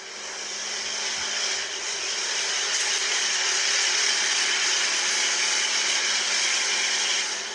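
Steady whooshing hiss with a faint low hum, like a fan or motor running. It fades in over about the first second and cuts off abruptly near the end.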